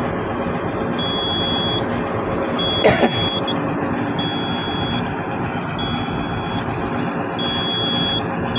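Komatsu hydraulic excavator's diesel engine running steadily at low idle, heard inside the cab, with a high warning beep sounding over it about every second and a half. A single sharp knock about three seconds in.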